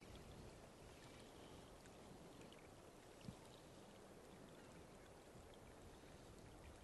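Near silence: faint outdoor background hiss, with one soft low thump about three seconds in.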